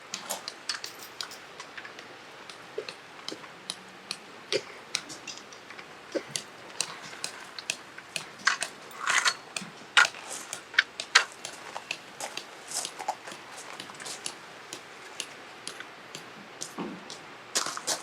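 Irregular light clicks, clinks and knocks, the small clatter of objects being handled, with a brief rustle about nine seconds in.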